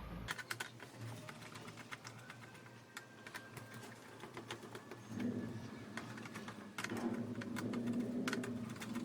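Screws being worked out of a Dell Inspiron 15 3000 laptop's plastic base: scattered light clicks and ticks of the screwdriver tip and plastic. From about five seconds in, a steady low hum joins, breaking off briefly and coming back near the end.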